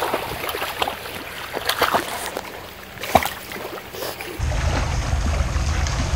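Lake water splashing and sloshing around a swimming dog, with scattered small splashes. About four seconds in it cuts to a steady low rumble.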